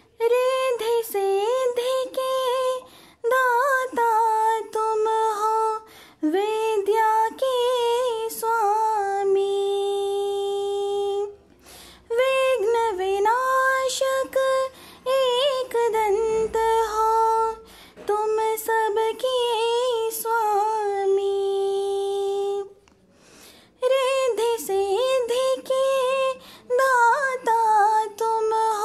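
A woman's voice singing a Hindi devotional bhajan melody unaccompanied, with long held notes, ornamented bends and two short breaks for breath.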